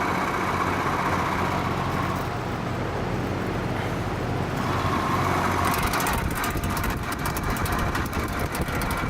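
Vintage Penncrest (rebadged Lakewood) metal box fan running with a steady motor hum and a rattle from its bearings, blamed on a worn rear thrust washer. Freshly oiled, it is still rattly but a bit quieter. The rattling comes through more strongly over the last few seconds.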